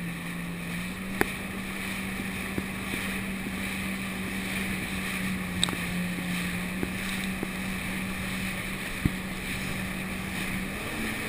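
Jet ski engine running at a steady throttle, its hum holding one pitch after a slight rise about a second in, under the rush of spray and wind on the microphone. A few sharp knocks stand out above it.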